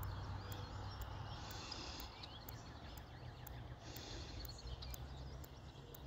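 A songbird singing short, buzzy, high phrases, one about every two and a half seconds, over a low steady rumble.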